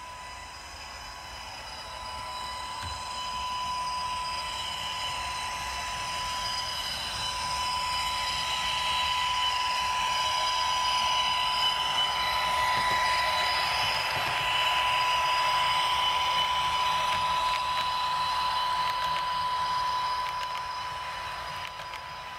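H0-scale model electric train running along the track, its motor whine and wheel noise growing louder over the first half and easing off near the end, with a steady high tone throughout.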